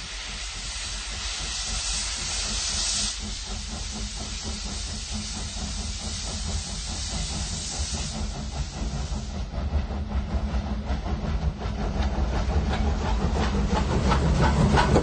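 Steam locomotive approaching: a loud steady hiss of steam, then from about ten seconds in a rhythmic beat of exhaust and running noise with a deepening rumble, growing louder as it nears.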